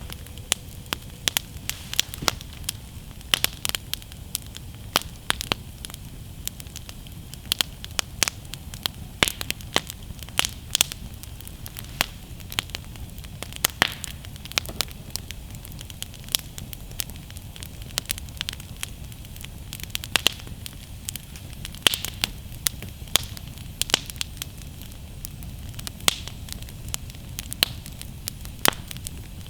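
Wood campfire burning, crackling and popping in many sharp, irregular snaps several times a second over a low steady rumble.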